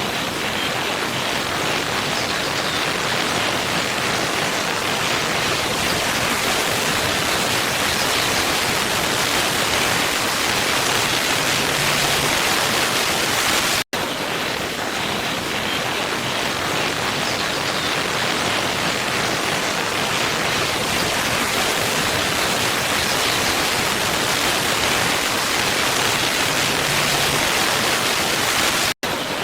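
Waterfall rushing: a steady, even roar of falling water that cuts out for an instant twice, about halfway through and just before the end.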